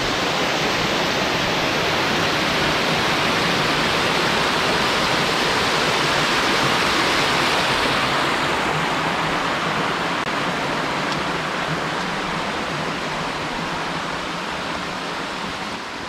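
Water rushing down a small rock cascade in a mountain stream: a steady rushing, loudest in the middle and easing off a little after about nine seconds.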